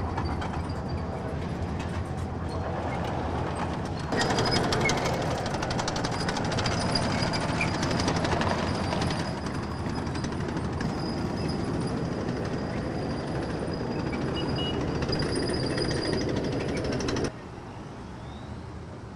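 A column of armoured vehicles moving past: engines running under a steady clanking rattle of tracks. It gets louder about four seconds in and drops off sharply near the end.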